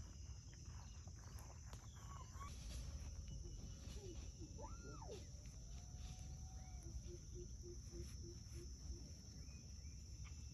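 Faint outdoor ambience: a steady high insect drone over a low rumble. A few short rising and falling calls come about halfway through, then a quick row of about eight even pips.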